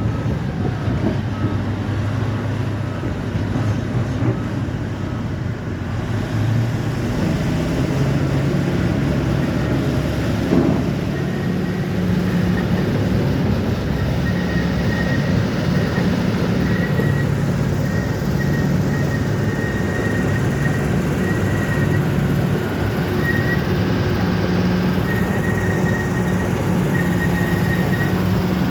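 Bulldozer's diesel engine running steadily, its pitch shifting now and then as the load changes. A faint, broken high tone comes in from about halfway.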